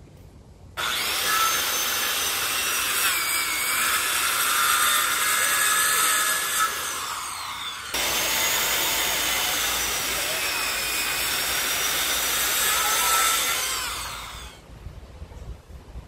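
Corded circular saw cutting through a tree limb: the motor starts abruptly about a second in and runs with a high whine as the blade bites the wood. It dips and starts again about halfway through, then winds down near the end.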